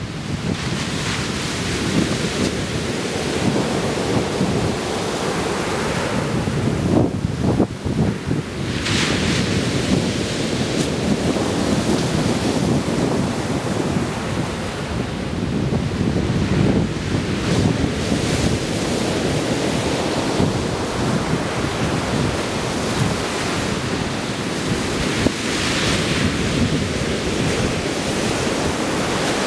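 Ocean surf breaking and washing up onto a sand beach, a steady rushing that swells as waves break, most clearly about nine seconds in and again near the end. Wind rumbles on the camera's built-in microphone throughout.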